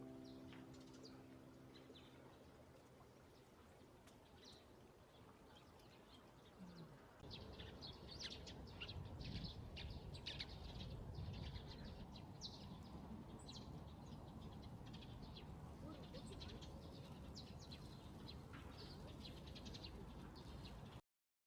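Small birds chirping and twittering in short, scattered calls over a faint outdoor background, starting about seven seconds in; before that, the last piano note dies away.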